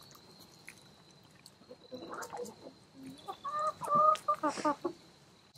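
Domestic hens calling: a few short, level-pitched calls from about three seconds in, ending in a quicker run of notes.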